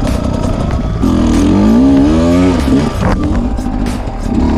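Sherco enduro motorcycle engine revving hard on a steep dirt climb, its pitch rising and falling with the throttle. There is a sharp knock about three seconds in.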